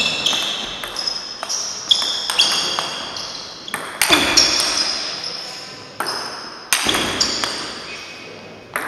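Table tennis rally: the ball is struck by bats and bounces on the table in a quick string of sharp, ringing clicks, about two a second. A couple of harder strokes stand out, and each click echoes briefly in a large sports hall.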